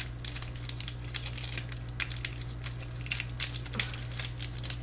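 Irregular small clicks and crinkles of a candy wrapper being handled and opened by hand, over a steady low electrical hum.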